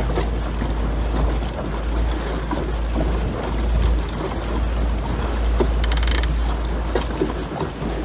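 Harpoon 5.2 sailing dinghy under way in strong wind: water rushing past the hull and wind buffeting the microphone in a steady low rumble, with a brief hiss about six seconds in.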